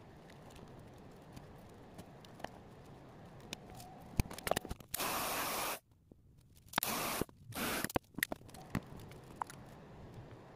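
Three short bursts of hissing spray, each starting and stopping abruptly, about halfway through, with light handling clicks and taps around them.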